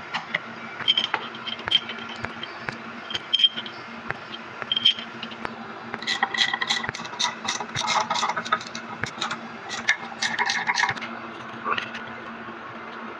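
Steel parts of a hydraulic drive motor clinking and clattering as they are handled and set together, with a few ringing clinks in the first five seconds and a busy run of clatter from about six to eleven seconds. A steady low hum runs underneath.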